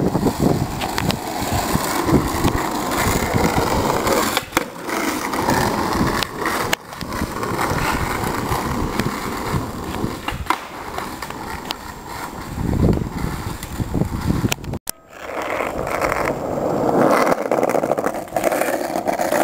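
Skateboard wheels rolling on asphalt, broken by sharp clacks of the tail popping and the board landing on ollies. After a sudden cut about three quarters of the way through, the wheels rumble steadily over interlocking concrete pavers.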